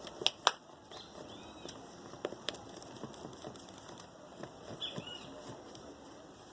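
Light taps and clicks of a utensil against a container while the slime ingredients (toothpaste, liquid soap, glue and pink gouache paint) are mixed, with a faint pattering of stirring in between.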